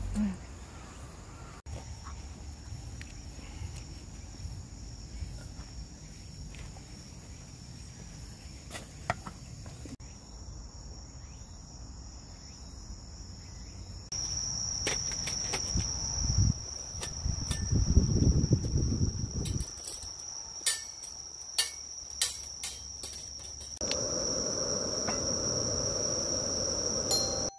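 Evening insects chirring in woodland, a steady high-pitched trill that grows louder about halfway through. Scattered clicks and a few low thumps come from handling and movement.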